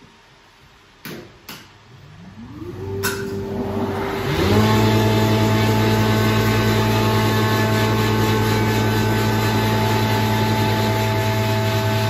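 A woodworking surface planer and its dust extractor are switched on one after the other. Each runs up in pitch to speed, the second start about two seconds after the first, and then they settle into a steady loud hum and whine, running idle with no wood yet being fed. A few sharp clicks come before the start-up.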